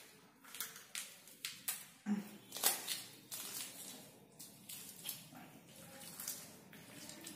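Fingers crushing and mixing small red Hei-Yai fruits with green chilli and salt on a plate: many irregular short wet squishes and light clicks, a little louder about two to three seconds in.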